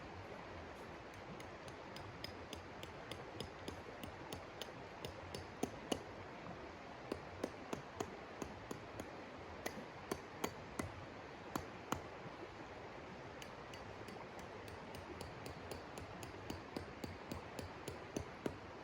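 Irregular light, sharp clicks and taps, a few a second, some with a short metallic ring, over a steady hiss.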